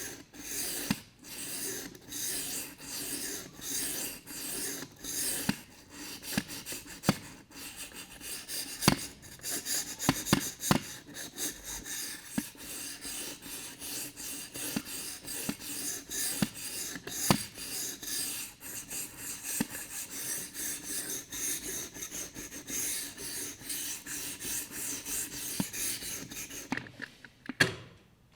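Steel knife blade being ground on a 400-grit whetstone in an Edge Pro-style guided sharpener: repeated rasping back-and-forth strokes as the edge is reprofiled. The strokes stop about a second before the end.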